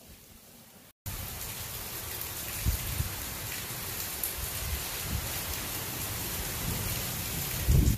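Heavy rain falling with a loud, steady hiss, starting abruptly about a second in after a moment of quiet, with irregular low rumbles of strong wind beneath it that swell near the end.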